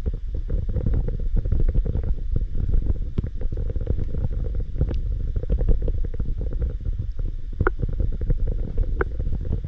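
Muffled underwater sound picked up by a camera in a waterproof housing: a steady low rumble of moving water with many small clicks and crackles throughout, and two sharper clicks in the last two seconds.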